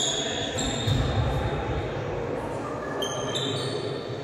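Sneakers squeaking on a sports-hall floor during volleyball play: several high squeaks, two near the start and two about three seconds in, with a low ball thud about a second in and faint voices.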